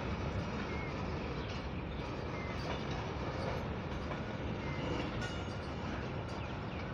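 A coal freight train's hopper wagons rolling past, a steady rumble of steel wheels on the rails with a few short high squeaks.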